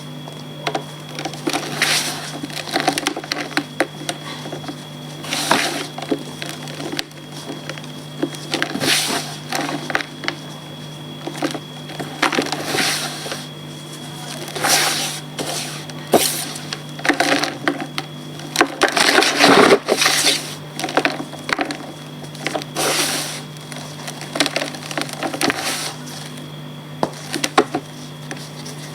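Blocks of reformed gym chalk being crumbled: irregular dry crunches and cracks, with a denser cluster of crunching about two-thirds of the way through, over a steady low hum.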